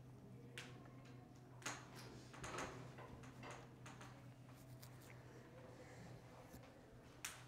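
Dry-erase marker writing on a whiteboard: a few faint, short scratches and taps, the longest about two and a half seconds in, over a steady low hum. A sharp click near the end.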